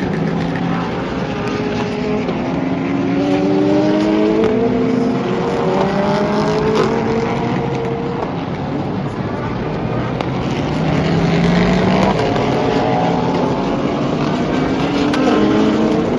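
Race cars passing at speed on the track, several in succession and overlapping. Their engines climb in pitch and drop back at each gear change.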